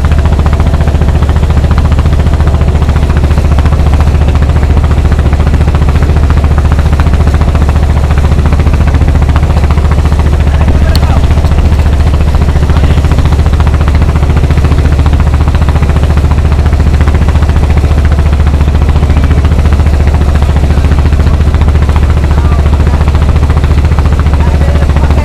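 Fishing boat's engine running steadily, a loud, low, pulsing drone.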